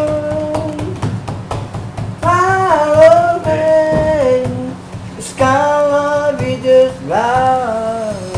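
Singing over backing music: a high voice holds long notes and slides between them, in three phrases with short breaks.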